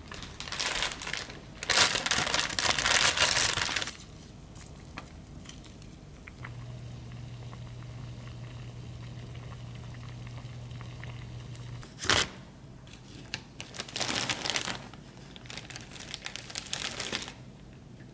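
Doenjang jjigae boiling hard in an earthenware ttukbaegi, a crackly bubbling that comes in loud spells. A steady low hum runs through the middle, and there is one sharp knock about twelve seconds in.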